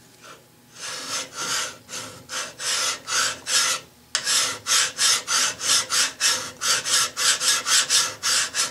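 Single-cut hand file being draw-filed back and forth across metal held in a vise, a finishing pass for a fine surface. Short rasping strokes about three a second start about a second in, with a brief break about four seconds in.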